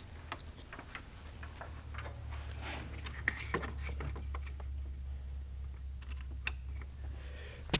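Test leads and alligator clips being handled under a car's hood: scattered small clicks and rustling of wire, then one sharp click near the end as a clip snaps onto the battery positive terminal, completing the load-test bulb's circuit. A steady low hum sits underneath.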